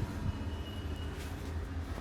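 Steady low rumble of a moving vehicle, with a few light clicks and a faint thin whine partway through.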